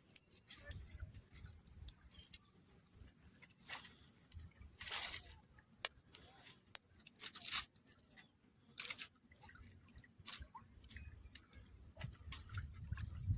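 A person eating close to the microphone: irregular crunches, bites and mouth clicks with pauses between them.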